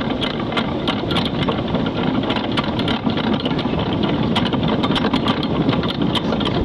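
Diesel engine of a Nordhavn 72 trawler running steadily, a dense rumble with a rapid, irregular clatter of ticks over it.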